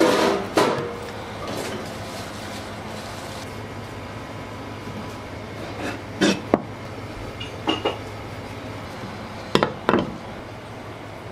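Short bursts of clinks and knocks as hard objects and utensils are handled, in four brief clusters, over a steady low hum.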